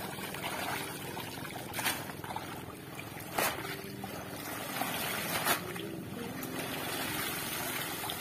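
Water splashing and streaming off a wet fishing net as it is hauled and dipped in shallow seawater, with three sharper splashes about two, three and a half, and five and a half seconds in.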